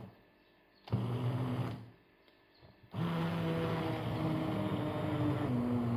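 Hand-held immersion blender puréeing soft boiled apricots in a pot. The motor runs in a short burst of about a second between two gaps of near silence, then runs steadily from about three seconds in.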